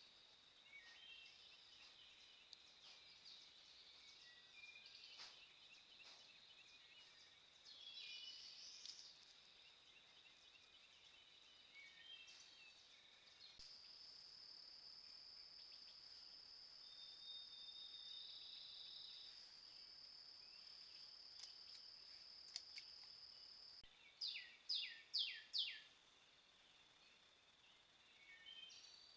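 Faint woods ambience picked up by a trail camera's microphone: a steady high insect drone with scattered bird chirps. Near the end, a bird gives four quick downslurred notes, the loudest sounds here.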